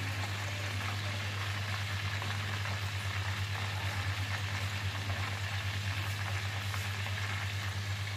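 A whole marinated chicken deep-frying in a pot of oil over low heat: steady sizzling and fine crackling of gently bubbling oil, over a steady low hum.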